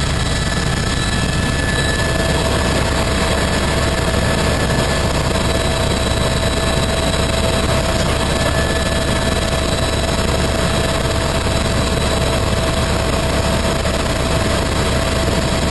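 Helicopter in flight: steady rotor and engine noise with a constant whine over it.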